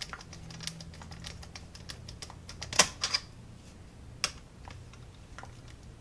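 A screwdriver tightening the ground screw on a wall receptacle, giving scattered light clicks and ticks of metal on metal. The loudest click comes a little under halfway through.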